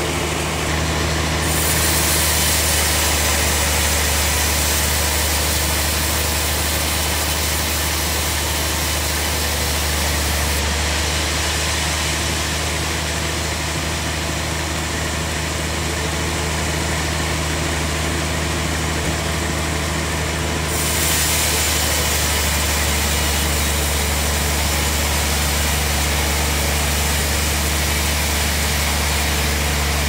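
Sawmill bandsaw running with its band blade cutting through a large log: a steady low drone from the machine's drive under a loud hiss of sawing. The hiss swells about a second and a half in and brightens again about two-thirds of the way through.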